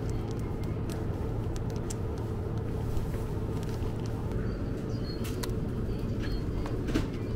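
Steady low machine hum of a convenience store's chilled-food section, with a few light clicks and crinkles of plastic food packaging being handled.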